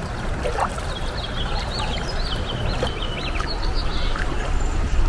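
A river rushing steadily, with a songbird singing a run of quick chirps through the middle.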